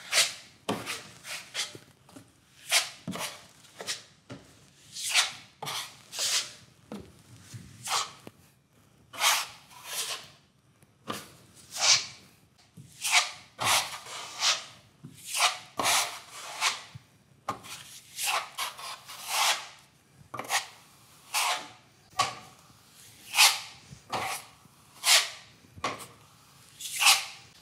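Steel plastering trowel spreading wet joint compound over a plasterboard patch: a long run of short scraping strokes, about one or two a second, as the top coat is laid on and feathered out.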